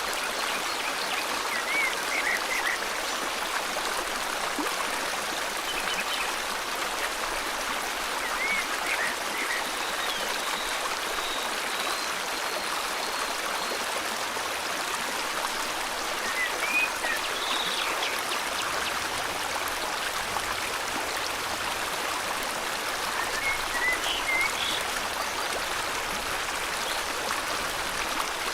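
Steady rush of a flowing river or stream, with birds chirping briefly now and then above it, several short calls spread through.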